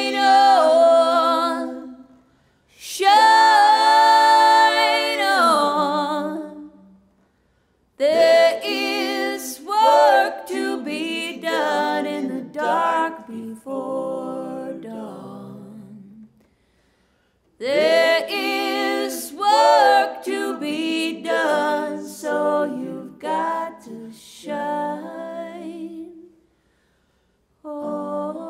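Unaccompanied vocal harmony: a woman singing lead with a man harmonising, in sung phrases a few seconds long broken by short silences.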